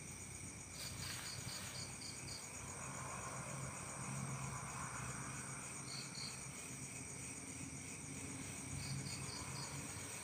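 Insects chirring steadily at a high pitch, with a few short runs of quick, higher chirps on top. A soft rushing swell rises and falls in the middle.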